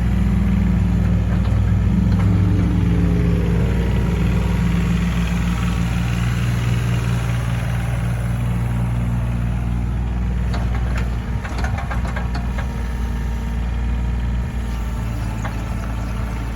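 Komatsu PC38UU mini excavator's diesel engine running steadily, its note rising and falling a little early on as the machine is worked. In the second half come a series of short knocks and clanks.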